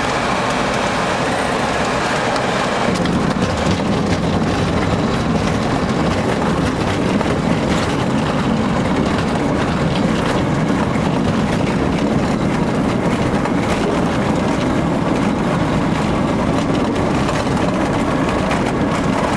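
Pipistrel light aircraft's engine and propeller running at low power, heard from inside the cockpit during the rollout after landing on a grass strip. The steady drone deepens about three seconds in.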